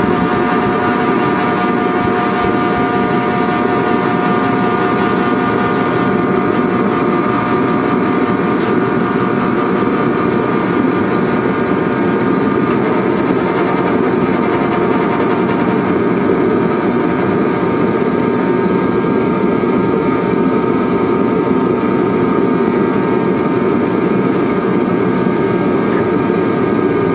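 Reddy Heater R50A kerosene torpedo heater running, its fan and air pump making a steady loud rush with a fixed whine. It runs on without cutting out with its new photocell flame sensor fitted.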